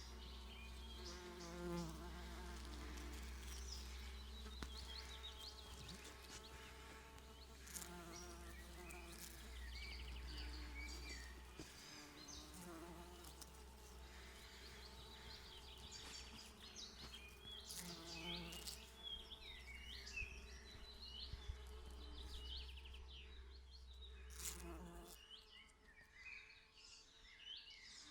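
Bees buzzing among flowers, their hum swelling now and then as one passes close, with many short bird chirps in the background. A low steady rumble underlies it and stops near the end.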